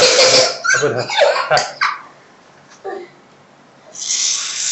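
A spray can of party string hissing, breaking up into short spurts and stopping about two seconds in, then hissing again near the end.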